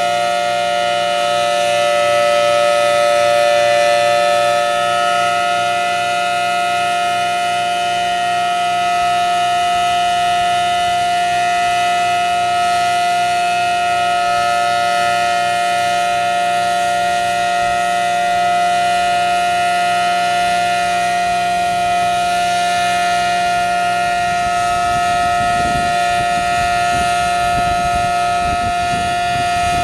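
Federal Signal Thunderbolt 1000T outdoor warning siren sounding a loud steady tone, its pitch holding level without rising or falling.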